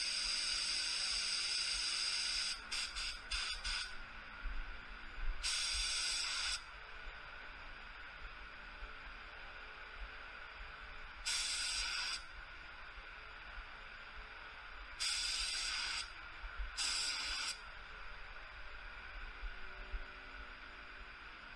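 ITALCO Shine 1 HVLP gravity-feed spray gun spraying adhesion promoter at 29 psi. Its air and atomised spray hiss in bursts, one per trigger pull and pass: a longer one at the start, then about five shorter ones of a second or less, with a fainter steady hiss in between.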